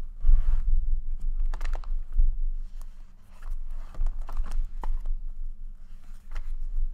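Paper and packaging being handled on a table: rustling and crinkling with scattered light clicks and low bumps, loudest about a third of a second in and again about two seconds in.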